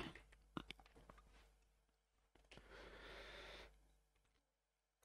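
Near silence: room tone, with a few faint clicks near the start and a soft breath about halfway through.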